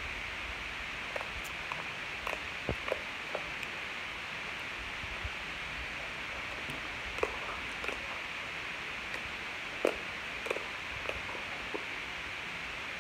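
Slime being pressed and stretched by hand on a stone countertop: scattered soft clicks and small pops, over a steady hiss.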